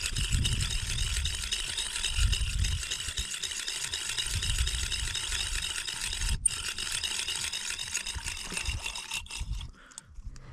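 Cheap Chinese fishing reel cranked steadily to wind in the line, a fast, continuous rattling tick from its gearing that stops about a second before the end. The reel's ratchet has broken, with something fallen loose inside it.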